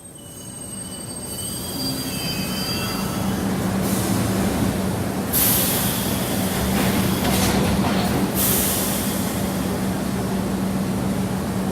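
Subway train sound effect: the train's running noise builds over the first two seconds with thin, high wheel squeals, then settles into a loud, steady rumble and hum, with stretches of bright hissing about five and eight seconds in.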